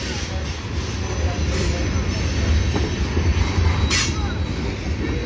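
Freight train cars (tank cars and covered hoppers) rolling slowly past on the rails, a steady low rumble of wheels and trucks. There is a short burst of harsher noise about four seconds in.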